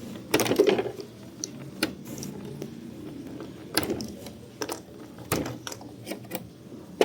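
Irregular clicks and knocks of plastic and metal parts being handled as a washing machine's water-inlet valves are worked loose for replacement.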